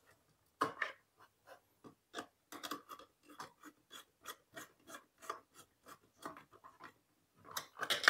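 Faint, irregular clicks and scrapes of a small screwdriver tightening a terminal screw on a plastic switch board socket, with wire being handled against the board, a few small clicks a second.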